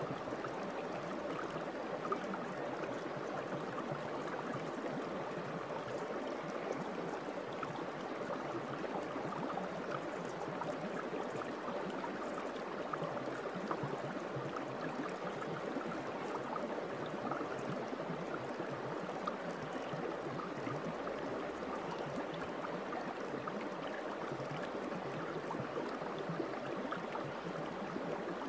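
Steady running water, like a babbling stream, with many tiny splashes and trickles that do not change in level.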